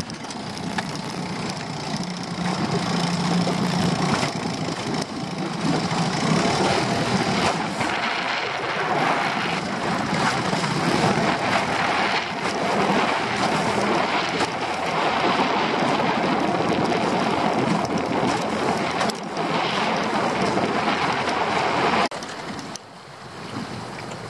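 Small dinghy's outboard motor running under way, mixed with wind on the microphone and water rushing past the hull. The motor noise drops off sharply near the end.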